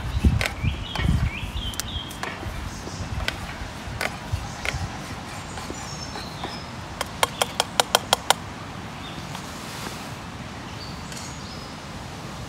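Food being stirred in a metal camping pot, with scattered clinks of the utensil against the pot. About seven seconds in comes a quick run of about eight sharp taps, some six a second, on the pot. Birds chirp in the background.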